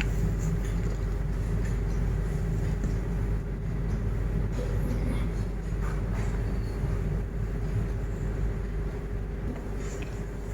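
Steady low rumble of room background noise with a faint constant hum, and a few faint soft ticks.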